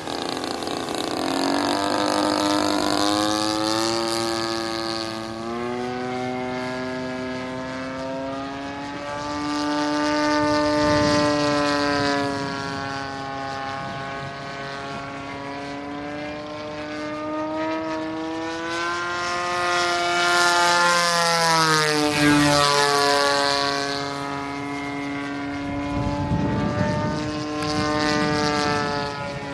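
Seagull Edge 540 radio-controlled aerobatic plane's engine and propeller in flight, the pitch rising and falling as the throttle changes and the plane comes and goes, swelling louder on its passes. A little past two-thirds through, the pitch drops sharply as it flies by.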